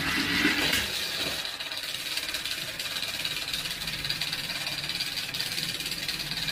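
Toy train rolling along a hand-made track of matchstick rails glued to paper: a steady whirring rattle of wheels on the rails. It is a little louder about the first second, as the train is sent off by hand.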